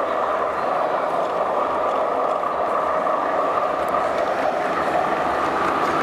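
Model diesel-hauled train running around a layout, a steady rolling hum, blended with the steady background noise of a busy exhibition hall.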